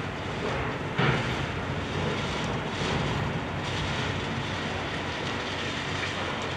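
Heavy demolition excavators' diesel engines running steadily, with a sudden loud impact about a second in and smaller knocks after it as the bridge is broken up.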